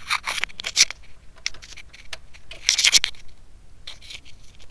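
A few short scraping, rustling sounds at uneven intervals, with no engine running.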